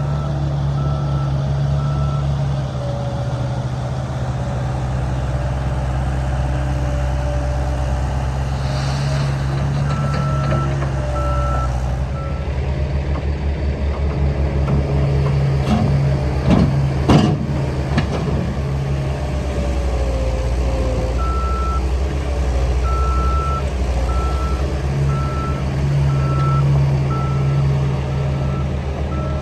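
Diesel engine of a CAT 236B skid steer running steadily under work, with its backup alarm beeping in runs as the machine reverses. A few metallic clanks come around the middle.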